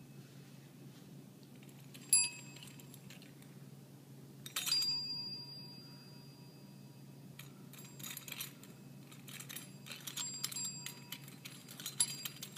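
A small bell struck by a puppy: one sharp ring about two seconds in, a louder ring that sustains for about two seconds at around four and a half seconds, then a run of lighter taps and clinks on the bell from about seven and a half seconds on.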